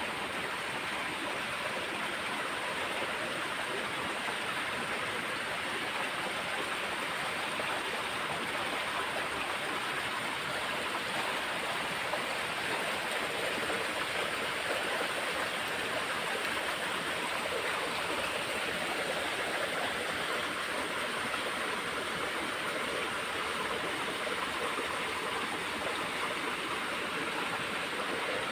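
Running water, a stream or small waterfall, rushing steadily and evenly without a break.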